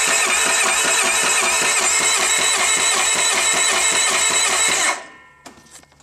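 Electric starter cranking a two-cylinder UTV engine with a quick, even chugging rhythm and a whine over it, never catching, then cutting off abruptly about five seconds in. The engine cranks but does not start, even though both cylinders show good spark at the spark testers.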